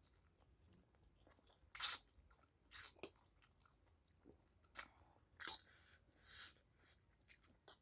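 A person eating spicy Buldak kimchi ramen: irregular chewing and biting mouth noises in short separate bursts, the loudest about two seconds in and again near the middle.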